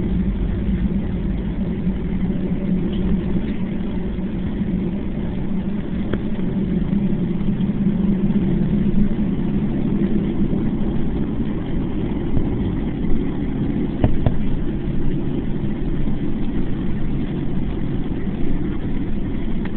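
Cabin noise of a Boeing 757 taxiing: its twin jet engines run at low taxi power as a steady, low drone, heard from inside the cabin.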